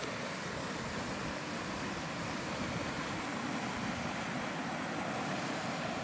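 Steady rush of river water pouring over a low concrete weir.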